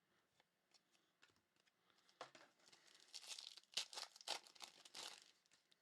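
Trading cards and their packaging being handled: a few faint clicks, then from about two seconds in a run of soft crinkling, scraping rasps for about three seconds.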